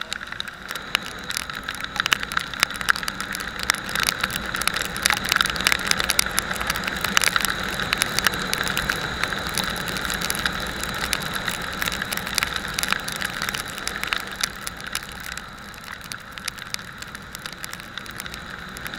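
Onboard sound of a motorcycle ride: steady wind and road noise with dense crackling and rattling, the engine only faint beneath it. It eases off a little near the end.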